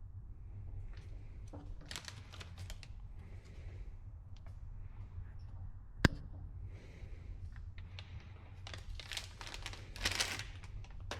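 Plastic packaging crinkling and rustling as new ratchets are unwrapped and handled, in scattered bursts with small clicks. A single sharp click about six seconds in is the loudest sound.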